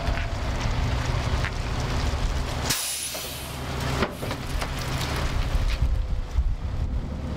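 Heavy semi-truck with a long pipe-carrying trailer passing close by on a wet, slushy road: a steady low engine rumble with tyres hissing through the slush, and a brief burst of hiss about three seconds in.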